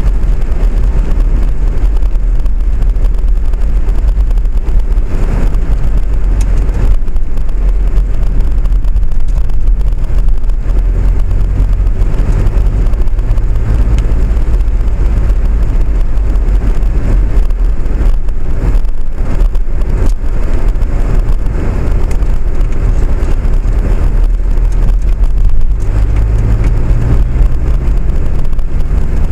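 Steady low rumble of a moving vehicle in motion, with a faint motor tone that steps up in pitch about a third of the way in and again near the end.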